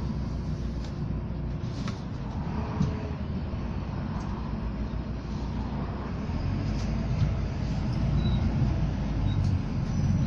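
Bus engine running with a steady low rumble that grows louder about six seconds in.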